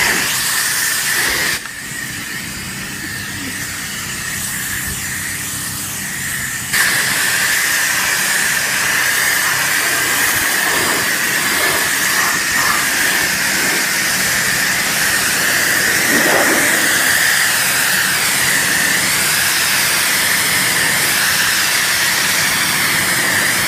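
Pressure washer jet hissing as it sprays water onto a car's painted trunk lid, washing off built-up grime. It is loud at first, softer for a few seconds from about a second and a half in, then louder and steady from about seven seconds in.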